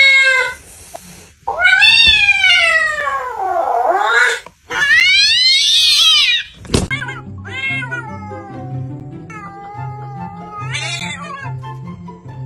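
Domestic cat yowling: a short cry, then two long drawn-out wails that rise and fall in pitch. After a sharp click about seven seconds in, background music with a steady beat begins, with shorter meows over it.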